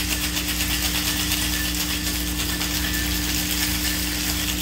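Ice rattling inside a stainless steel cocktail shaker, shaken hard in a fast, even rhythm of several strokes a second to chill and mix the cocktail.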